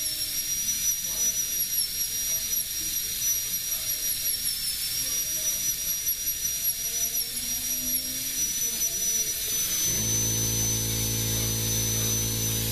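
High-speed rotary carving handpiece with a tiny number 3 carbide bit, whining at a high pitch that wavers slightly as the bit is tapped into the wooden gunstock to stipple it. A low steady hum joins about ten seconds in.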